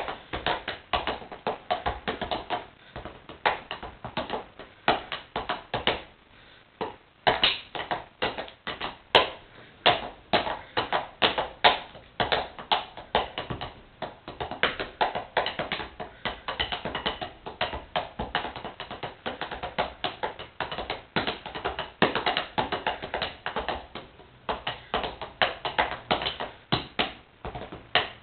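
Wooden drumsticks drumming fast rhythms on a pair of sneakers: a continuous run of quick taps with louder accented hits. The playing thins out briefly about six seconds in.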